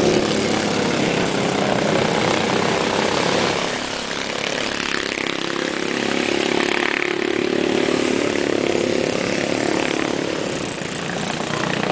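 Go-kart engine running at low speed. Its note falls away about four seconds in, then picks up again and holds steady.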